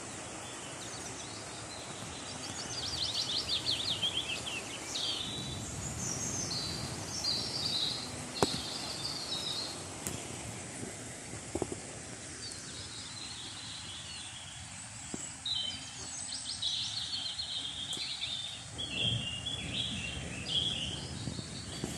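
Small birds chirping and trilling high-pitched in several bursts over a steady outdoor background noise, with a few sharp clicks in the middle.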